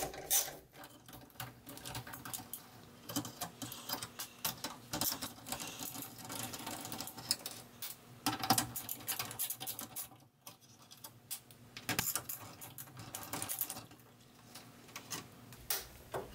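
Hand screwdriver backing out the screws that hold a TV main board to its sheet-metal chassis: a run of small, irregular metal clicks and scrapes, with a short lull partway through.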